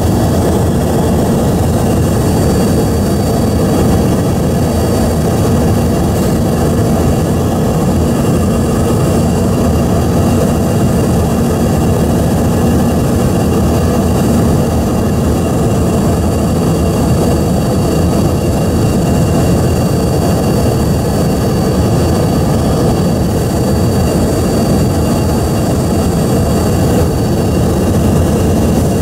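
Cabin noise of an Embraer ERJ-145 on approach to landing: its rear-mounted Rolls-Royce AE 3007 turbofan running steadily, a loud even rush with a thin high whine.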